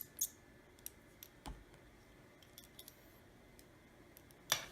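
A few light clicks and taps of small metal repair tools and parts on an iPhone 7's internals, with a louder click near the end.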